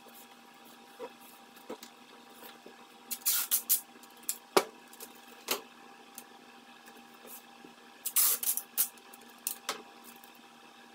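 Masking tape being pulled off the roll in several short ripping pulls, about three seconds in and again around eight to ten seconds, with a couple of sharp clicks in between as strips are torn and laid on a plastic bumper.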